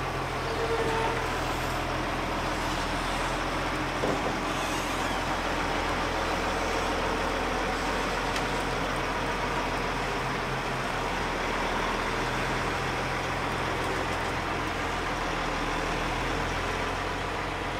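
Diesel engine of a heavy semi-trailer truck running steadily as it moves slowly, hauling a low-loader trailer loaded with a diesel locomotive.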